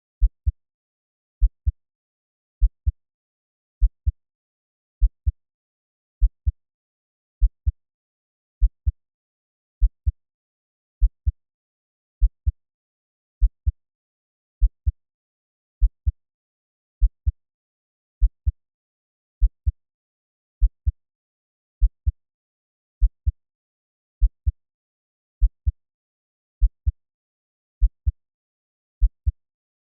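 Slow, steady heartbeat at 50 beats per minute: a pair of deep, low thumps (lub-dub) about every 1.2 seconds, with silence between beats.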